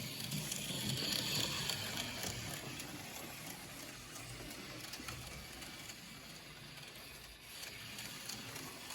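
HO-scale Thunderjet 500 slot car's small pancake motor whirring as the car laps a plastic track, with the gears and pickups chattering. It fades in the middle and grows louder again near the end. The car has no traction magnet and is not yet oiled or broken in.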